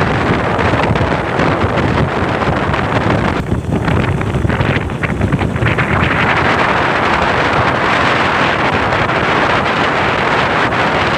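Wind rushing over the microphone of a moving vehicle, with a steady low engine drone underneath; the rush eases briefly a few seconds in.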